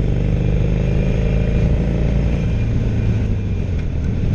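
Harley-Davidson Sportster 1200 air-cooled V-twin engine running under throttle while the motorcycle passes traffic, heard from the rider's seat with wind and road noise. The engine note drops about halfway through.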